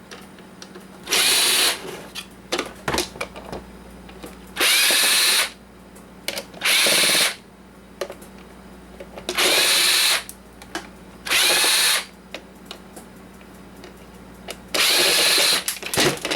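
Handheld power drill-driver running in six short bursts, each under a second, its whine rising and falling as the motor spins up and stops, backing screws out of the coffee maker's plastic housing. Small clicks and rattles of handling the parts come between the bursts.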